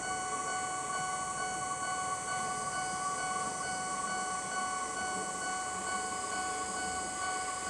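Japanese level-crossing warning bell ringing continuously, a steady electronic chime of several held tones.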